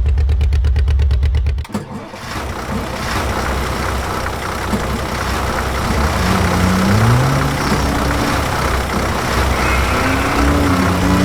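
A motor runs with a steady, even pulse and cuts off suddenly about two seconds in. Engine-like running noise follows, rising in pitch twice as if revving up.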